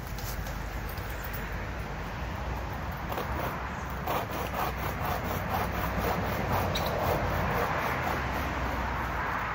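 Hand pruning saw cutting through a fallen tree branch. From about three seconds in it makes a steady run of rasping back-and-forth strokes.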